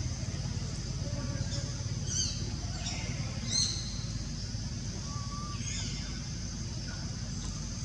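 Tropical forest ambience: a steady high insect drone over a low rumble, with short bird chirps a handful of times.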